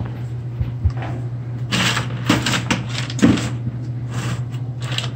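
Hand tools being picked up and handled, a few short metallic clicks and clatters about two seconds in and again near the end, over a steady low hum.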